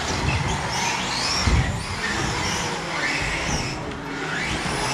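Radio-controlled race cars running on the track: high motor whines that rise and fall in pitch as they speed up and slow down, with a low thump about one and a half seconds in.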